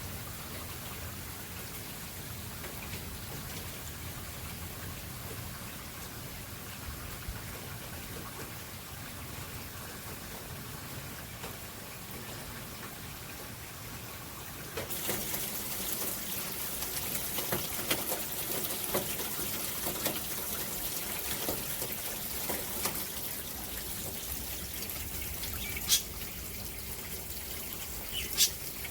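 Rain falling steadily, with water trickling and dripping. About halfway through it turns louder and hissier, with many close drops striking, and there are two sharp taps near the end.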